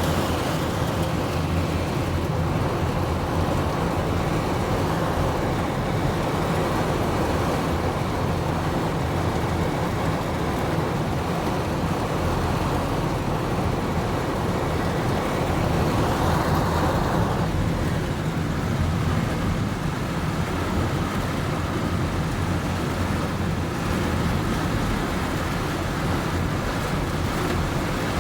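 Heavy rain pouring down steadily, a constant dense noise with a deep low rumble underneath, swelling briefly about two-thirds of the way through.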